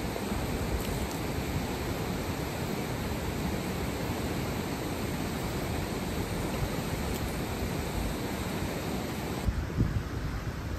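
Steady rushing of a river, an even noise that does not let up. Near the end the sound changes and a few low thumps come through.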